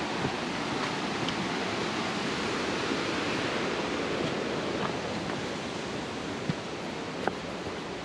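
Steady rushing roar of a waterfall, a little louder midway, with a few faint clicks.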